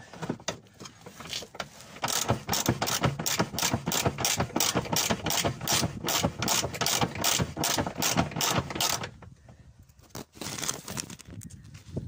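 Socket ratchet clicking quickly and evenly, about four clicks a second, as it backs out the 19 mm retaining bolt of a VW T5 Transporter's underslung spare-wheel cradle. The clicking stops about three-quarters of the way through, and a few more clicks follow near the end.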